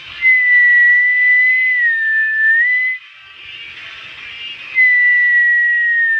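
Two long whistled notes over soft background music. The first is held for about two and a half seconds with a small dip in pitch near its end. The second starts just before the end and falls slowly.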